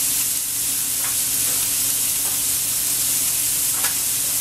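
Hanger steak searing in hot oil in a pan: a steady sizzle, with two faint ticks, about a second in and near the end.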